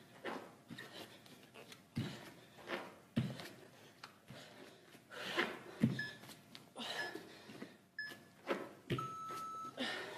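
Bare feet thudding and brushing on an exercise mat at an irregular rhythm during a fast floor cardio move. Near the end, an interval-timer app on a phone gives three short beeps about a second apart and then one longer, lower beep, the countdown that marks the end of the 30-second interval.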